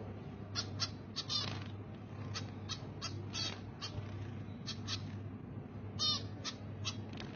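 A bird chirping over and over: short high chirps, some in quick pairs, with a steady low hum underneath.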